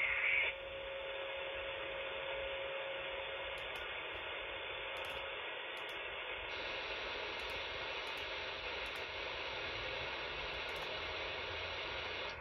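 Radio receiver static: a steady hiss from a software-defined radio tuned near 27.750 MHz on the 11-metre band. A short, louder burst comes right at the start, and a faint steady low tone runs through the first few seconds. About six and a half seconds in, the hiss turns brighter as the receive passband widens.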